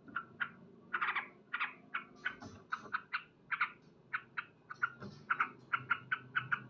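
Male yellow-vented bulbul (trucukan) calling: a quick run of short chattering 'cuk cuk' notes, about three or four a second, the kind of call used to challenge a rival male.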